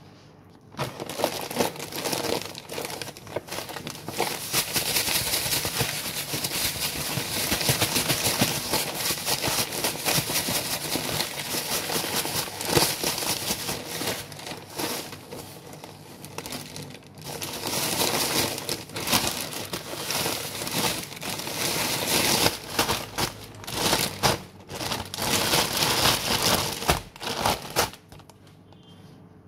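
Thin plastic bag crinkling and rustling under the hands as raw chicken pieces are handled and coated with breading inside it, with a few short lulls.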